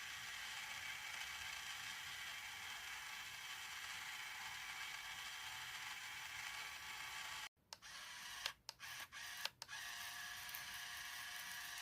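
Small electric motor and gear drivetrain of an RC truck whining steadily. It cuts out abruptly about seven and a half seconds in, then stops and restarts a few times.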